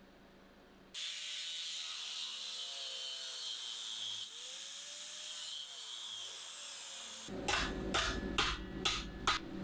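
Welding arc crackling and hissing steadily for about six seconds as the gaps in a steel fire pot are welded shut. Near the end it gives way to a run of sharp strikes, about two a second.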